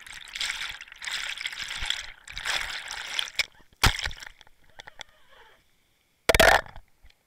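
Water sloshing and splashing around an underwater camera as it is lifted out of the water, with a sharp knock about four seconds in and a louder knock near the end.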